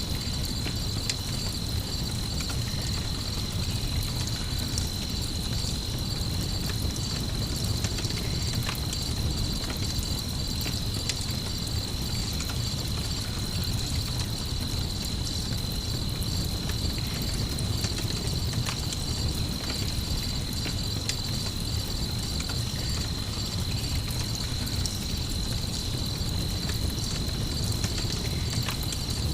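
Night ambience of crickets trilling steadily over a campfire: a low steady rumble with scattered sharp crackles and pops from the burning wood.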